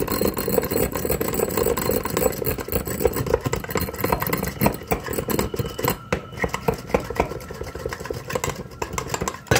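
Eggs being beaten by hand in a bowl: a rapid, steady clatter of the utensil against the bowl.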